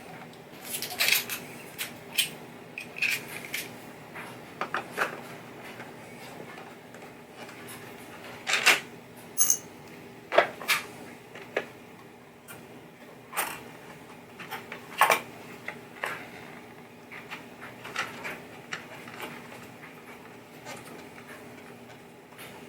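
Scattered sharp clicks, taps and light knocks of small parts and plastic pieces being handled and set down on a pinball playfield during disassembly, over a faint steady hum.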